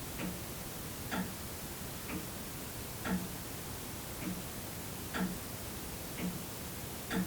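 Old mechanical clock ticking about once a second, the tick and tock alternating stronger and weaker, over the steady hiss of a quiet room's tone.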